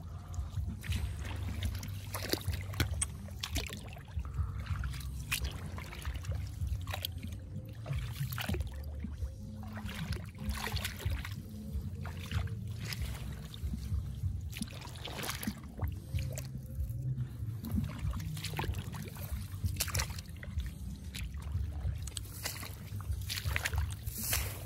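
Shallow, muddy rice-paddy water being waded and stirred through, with irregular splashes and sloshes over a steady low rumble.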